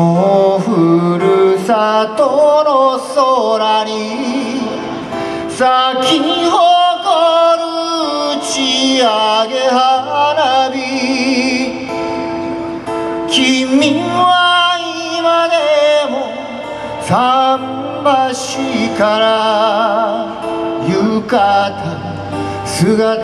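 A man singing a slow ballad into a microphone, accompanying himself on acoustic guitar, amplified through a stage PA; several long held notes carry a clear vibrato.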